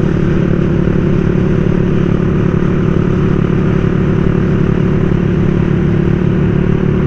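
Motorcycle engine running steadily while riding, its pitch holding even with no revving up or down.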